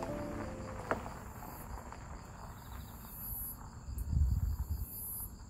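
Insects chirping in a steady high trill, with a higher buzz that swells and fades about every two seconds. The last notes of background music die away at the start, there is a single short knock about a second in, and a low rumble rises briefly about four seconds in.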